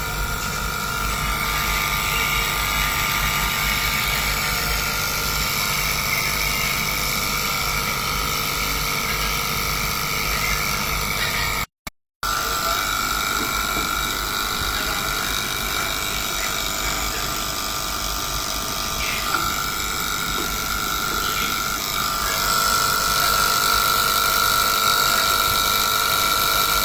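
Microwave oven running with a steady whining tone over a low hum: the abnormal noise it is being checked for. The tone grows a little louder near the end, and the sound cuts out briefly about twelve seconds in.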